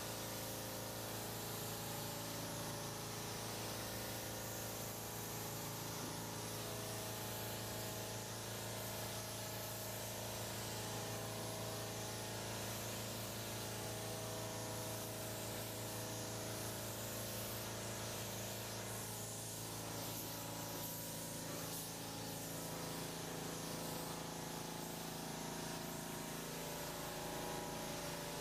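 Steady hiss of compressed air and atomised paint from a gravity-feed spray gun held open through continuous passes, over a constant low hum.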